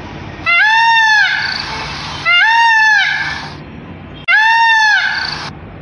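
Indian peafowl (peacock) calling: three loud calls about two seconds apart, each one long note that rises and falls in pitch.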